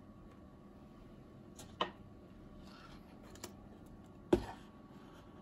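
An instant-noodle cup handled on a wooden table: a sharp knock, a faint rustle and a small tick, then a louder, deeper thump near the end as the cup is set down on the tabletop.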